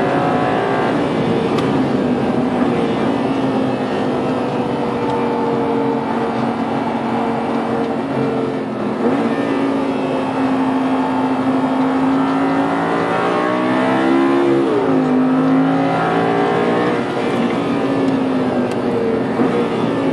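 Audi R8 GT's V10 engine heard from inside the cabin, running hard under load with its pitch rising and falling through the gears. The pitch jumps sharply about nine seconds in and again with a quick rise and fall around fourteen seconds, like downshifts.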